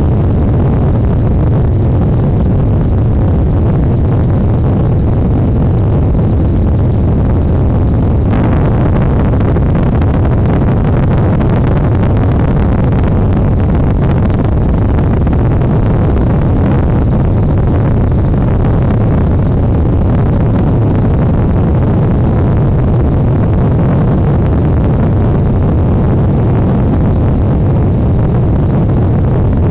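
Steady, loud, low engine rumble, unbroken throughout, taking on a slightly brighter tone about eight seconds in.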